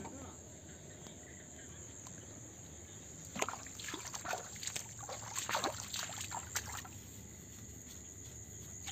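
Footsteps squelching and splashing through wet mud and standing water, a run of irregular wet crackles for a few seconds in the middle. A steady high-pitched drone and a low hum run underneath.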